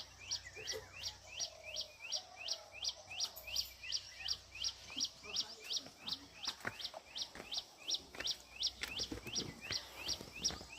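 A bird calling a long, steady series of short, high notes that each slide down in pitch, about three to four a second, with faint other sounds beneath.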